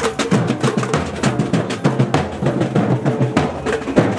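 Marching street drum band playing: large bass drums booming under snare and smaller drums, beating a fast, dense rhythm of several strikes a second.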